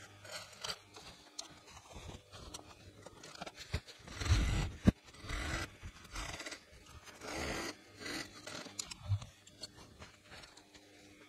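Fabric rustling and sliding over a work table as it is smoothed and pulled by hand, in irregular swishes, with one sharp click about five seconds in.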